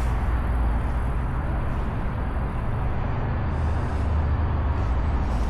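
Steady road-traffic noise with a strong low rumble, no single event standing out.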